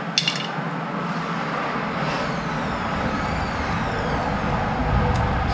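A few sharp metal clicks as a lock is fitted onto the trailer's hitch coupler, followed by a steady low rumble that swells slightly near the end.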